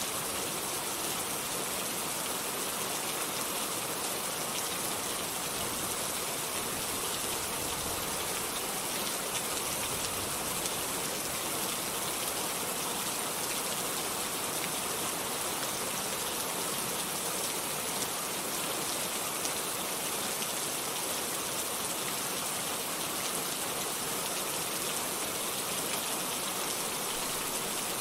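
Rain falling steadily: an even hiss with scattered faint drop ticks.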